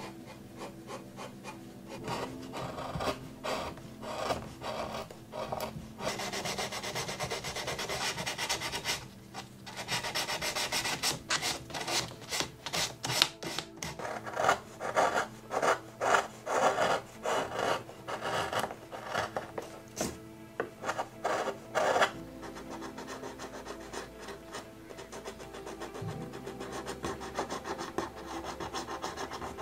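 Hand carving gouges slicing and scraping white pine in short repeated strokes, about two a second at their busiest, loudest through the middle and softer near the end.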